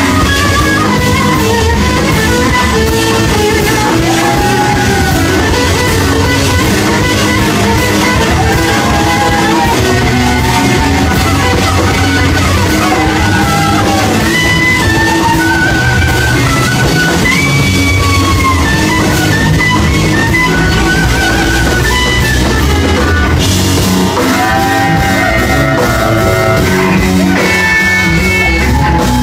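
Live rock band: electric guitar played through a blackface Fender Super Reverb amplifier, its notes bending up and falling back, over drums and bass guitar.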